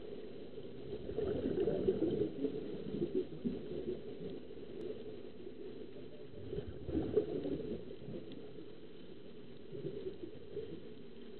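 Muffled underwater bubbling and gurgling of air escaping from sea-walk diving helmets, recorded underwater. It swells louder from about a second in to about three seconds, and again briefly around seven seconds.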